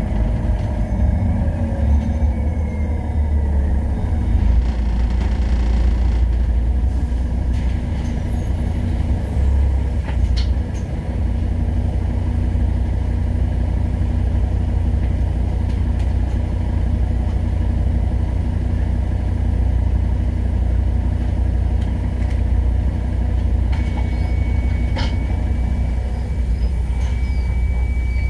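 City bus engine and drivetrain heard from the driver's cab, with a steady low rumble. A falling whine in the first few seconds as the bus slows, then the engine idles with the bus standing at a stop. A few clicks, and a thin steady high tone in the last few seconds.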